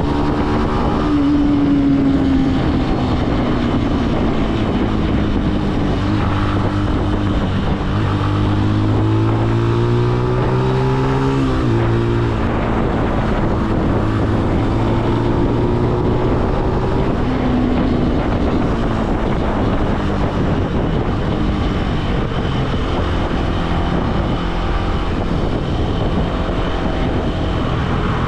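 Benelli BN125's single-cylinder 125 cc four-stroke engine running while the bike is ridden, with wind rushing over the microphone. The engine's pitch climbs steadily from about eight seconds in, then drops sharply about twelve seconds in.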